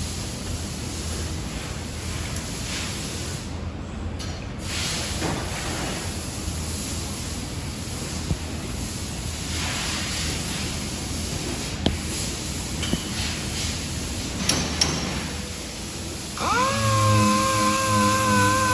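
Steady hissing workshop noise with a few sharp clicks and knocks from hand work on a car body. Music comes in near the end.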